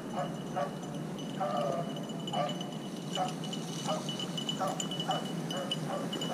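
Beagles baying on a rabbit's trail: short, repeated hound bawls about one to two a second, the sound of the pack running the scent. A thin steady high-pitched ring sounds behind them.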